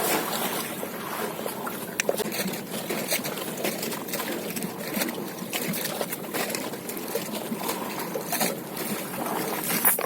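Water trickling and splashing around a small boat on a river, with scattered small knocks and one sharper knock about two seconds in.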